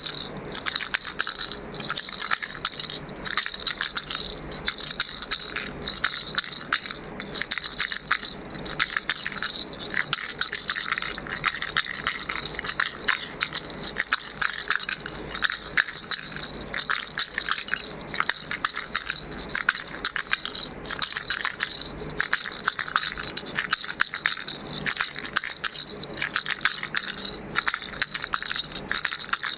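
A baby rattle shaken continuously: a dense clatter of small beads with a light ringing, broken by brief pauses about every second and a half.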